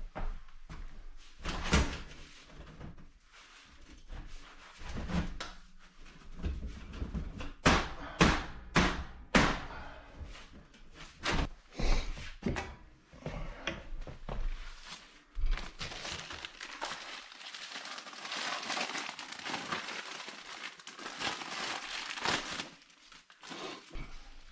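Irregular metallic knocks and thunks from handling a steel wood stove and its stovepipe, followed by several seconds of scraping and rubbing noise.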